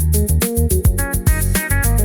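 Instrumental music with a steady drum beat, a deep bass line and short melodic notes, no singing.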